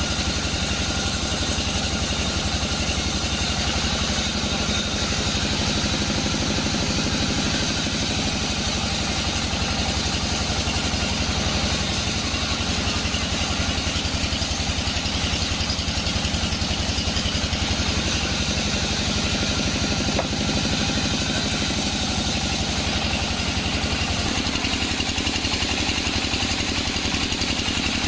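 Band sawmill machinery running: an engine runs steadily with a fast, even low throb and a steady higher whine over it.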